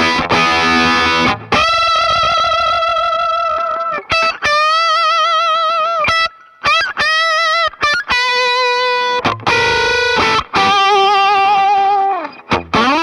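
Fano PX6 electric guitar through a 65 Amps Colour Boost germanium treble booster into a Tone King Imperial tube amp, overdriven. It opens with strummed chords, then plays a lead line of held single notes with wide vibrato and bends, with another chord burst shortly before a quick upward slide near the end.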